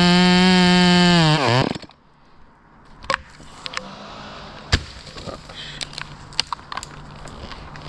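Chainsaw running at full throttle, then released about a second and a half in, its pitch falling as it drops back. After that a lower steady hum continues, broken by several sharp knocks.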